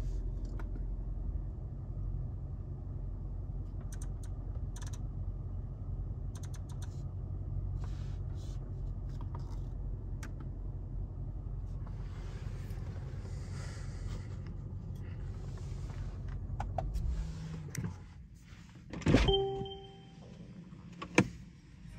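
Mercedes-AMG GT63 S idling as a steady low rumble with small clicks, which stops about three-quarters of the way through. A thud with a brief ringing tone follows, then a sharp click near the end.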